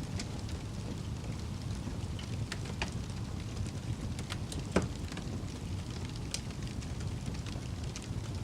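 Wood fire burning with a low steady rush and scattered sharp crackles and pops, the loudest pop a little before five seconds in.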